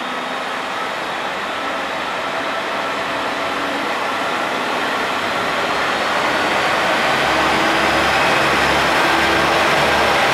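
KiHa 47 diesel railcar drawing along the platform with its engine running, a steady mechanical din that grows louder as it approaches, and a low pulsing rumble coming up in the second half.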